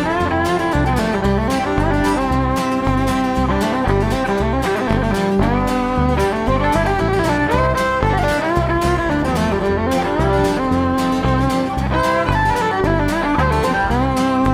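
Live country band playing an instrumental break between sung choruses: a lead melody line sliding in pitch over strummed strings and a steady, pulsing bass rhythm.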